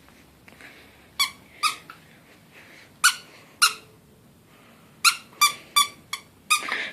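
Squeaky dog chew toy squeezed by hand again and again: about nine short, high squeaks, two pairs and then a quicker run of five near the end.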